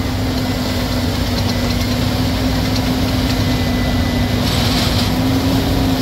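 John Deere CH570 sugarcane harvester running steadily under load as it cuts cane: a loud, even diesel-machinery drone with a constant low tone.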